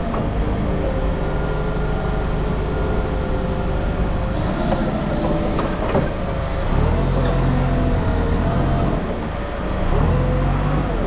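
Forklift engine running under load while its hydraulic whine rises and falls as the forks are worked, with a metal clank about six seconds in.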